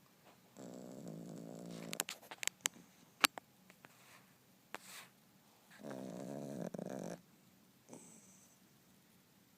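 Yorkshire terrier snoring in its sleep: two drawn-out, buzzing snores about four seconds apart. Between them come a few sharp clicks, the loudest about three seconds in.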